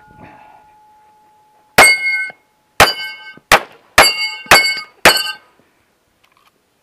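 Six pistol shots from a 1911, spaced about half a second to a second apart, each followed by a brief metallic ring as the bullet strikes a steel spinner target. A fainter ring from an earlier hit fades out in the first second.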